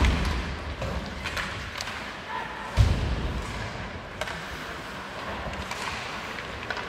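Ice hockey play in a large, nearly empty arena: heavy thuds against the boards, the loudest nearly three seconds in, among scattered sharp clicks of sticks and puck and the hiss of skates on the ice.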